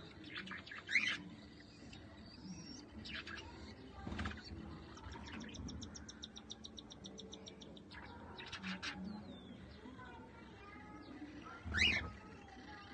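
Cockatiels chirping and calling at a nest box, with scattered short chirps. Two loud rising chirps stand out, about a second in and near the end, and a rapid run of short high notes, about ten a second, comes in the middle.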